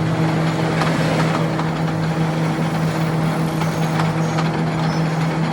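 A machine running steadily, with a constant low hum over dense mechanical noise and scattered light clicks.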